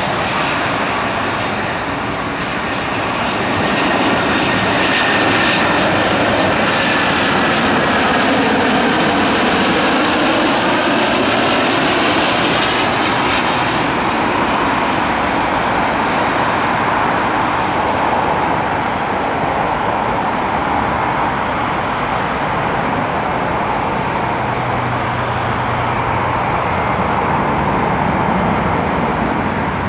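Airbus A320 jet airliner on final approach, its engine noise swelling over several seconds as it passes low overhead with sweeping, shifting tones, then settling into a duller rumble as it flies away down to the runway.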